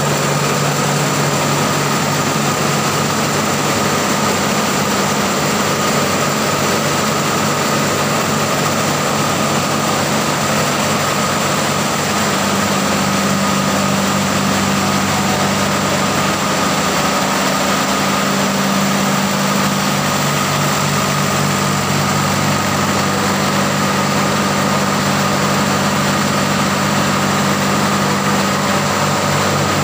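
Ship's diesel engines running steadily in an engine room: a loud, constant low drone with a steady high whine over it. The low hum grows stronger about twelve seconds in.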